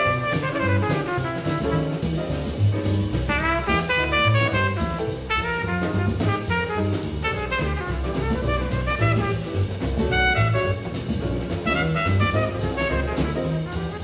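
Upright double bass walking one note to the beat under a hard-bop jazz quintet recording, with a horn soloing in fast runs over a drum kit.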